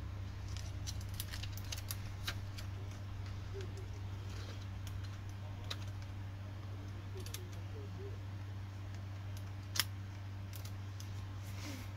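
Scattered small clicks and taps of hands handling plastic parts and a connector inside the opened chassis of a Dell Latitude E7440 laptop, with one sharper click near the end, over a steady low hum.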